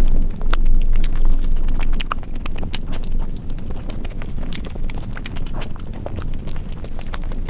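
Close-miked chewing and wet mouth clicks and smacks of a person eating curry and omelet, in irregular quick clicks over a low rumble.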